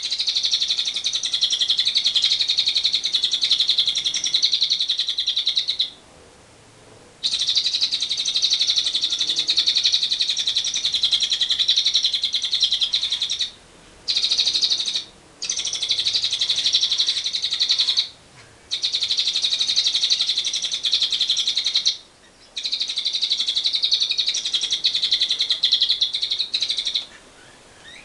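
Lovebird's long 'ngekek' chatter: a fast, high, rattling trill held for several seconds at a time, broken by short pauses about six times.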